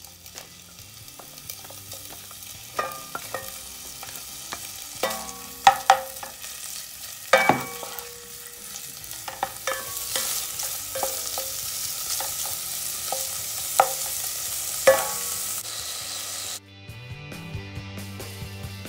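Diced bacon sizzling in a little olive oil in a pot over medium heat, while a utensil is stirred and knocks against the pot now and then. The sizzle grows louder over the first ten seconds, then cuts off abruptly near the end.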